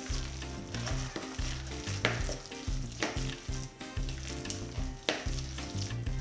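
Background music with a steady beat about once a second and a moving bass line, over a spoon stirring wet grated-potato pancake batter in a plastic bowl.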